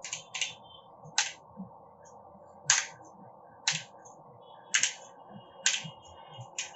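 Single key presses on a Logitech G512 mechanical keyboard: about eight sharp, separate clicks, roughly one a second.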